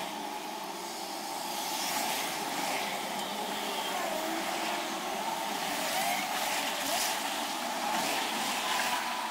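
Street traffic: cars and a motorcycle driving past over a cobblestone street, a steady wash of engine and tyre noise, with people's voices in the background.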